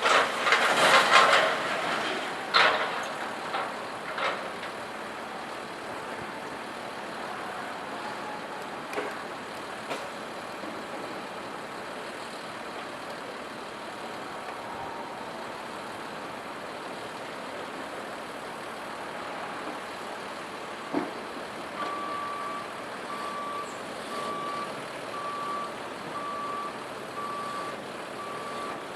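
Scrap metal crashing and banging as a loader works the pile, loudest in the first three seconds, then a few scattered knocks over a steady background rumble. About two-thirds of the way through, a reversing alarm starts beeping steadily, a little more than once a second.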